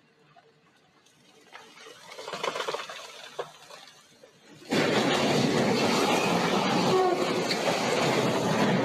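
A container freight train rolling past. About halfway through, a sudden loud, continuous crashing roar sets in as a landslide of earth and rock slams into the train's double-stacked containers and knocks them over.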